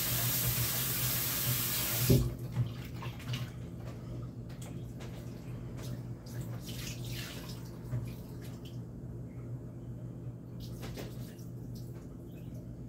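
Kitchen tap running hard into a bowl of raw chicken pieces in the sink, shut off with a knock about two seconds in. Then comes irregular water sloshing and splashing as the chicken is rinsed and the water is poured off into the sink, over a steady low hum.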